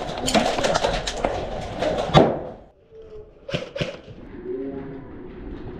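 Airsoft guns firing in rapid clicking strings, ending in a louder sharp crack about two seconds in. After that it goes much quieter, with a few more shots a second or so later.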